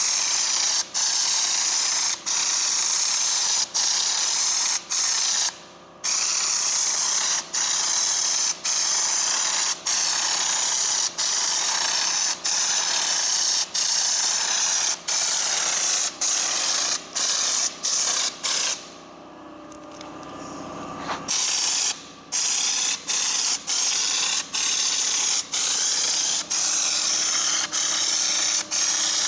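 Compressed-air schutz gun with a screw-on bottle spraying textured bed-liner coating: a loud, steady air hiss broken by short gaps about once a second. The spraying stops for about two seconds some two-thirds of the way in.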